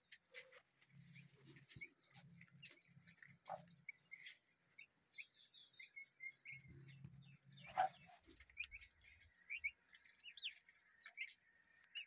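Newly hatched turkey poults peeping: faint, scattered short high chirps, with a few soft low rumbles in between.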